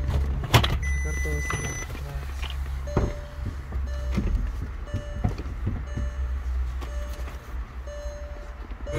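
Short electronic beeps recurring roughly once a second in a car cabin over a steady low hum, with a few sharp clicks from buttons and the gear selector being worked.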